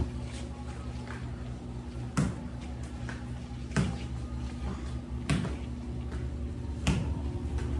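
Sharp knocks on a tiled floor, about one every second and a half, from a home workout, over a low steady hum.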